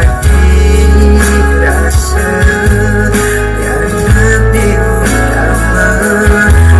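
Live band music: amplified guitar and heavy bass notes with a steady beat, played loud.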